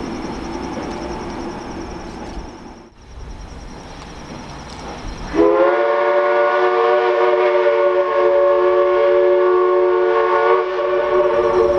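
Steam locomotive's chime whistle sounding one long blast of several notes together, starting about halfway through and held past the end, with the chord shifting slightly near the end. Before it, a low rumble fades away about three seconds in.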